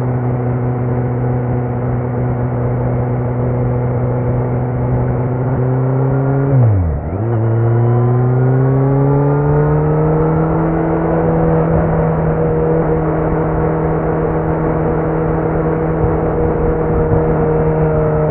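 Kawasaki Z900 inline-four motorcycle engine through a Leo Vince muffler with no dB killer, running at a steady cruise. About seven seconds in the engine note drops sharply for a moment, then climbs and settles at a higher steady pitch.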